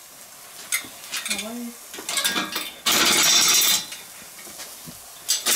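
Steel chain of a tripod swing grill rattling and clinking as the grate loaded with steaks is hoisted up off the charcoal. There are a few separate clinks, then a loud rattle of about a second near the middle.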